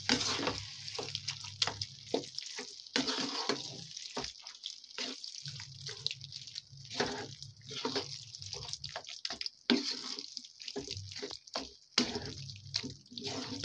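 Wooden spatula stirring and mashing roasted eggplant into a wet masala in a nonstick kadai, in irregular squelches and scrapes against the pan. A low hum comes and goes underneath.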